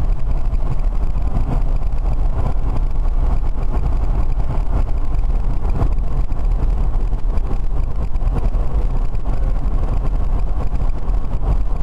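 Steady road and wind noise inside the cabin of a BMW converted to electric drive, running on the motorway, with a heavy low rumble and no engine note.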